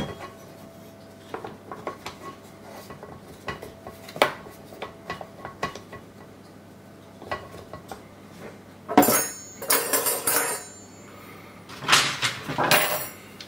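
Hard plastic washing machine door parts handled against the glass porthole: scattered small clicks and taps, then two louder spells of clattering and scraping near the end as the glass bowl is set onto the plastic door ring.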